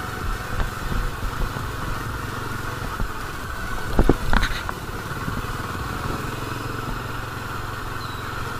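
Bajaj Dominar's single-cylinder engine running steadily as the motorcycle is ridden along at low speed, with a brief louder sound about four seconds in.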